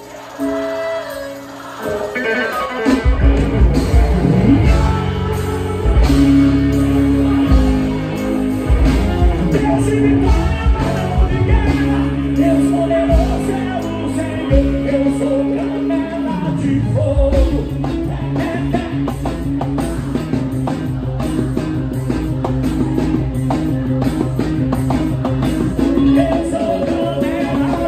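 Live band playing on stage, electric guitar with singing. After a quieter opening, the full band comes in loud about two seconds in and keeps a steady beat.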